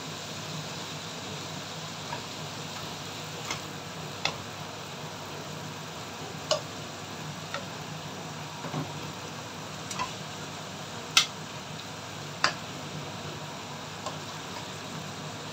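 Diced bacon frying in oil in a wok, a faint steady sizzle broken by about ten scattered sharp clicks as it is stirred with a spatula.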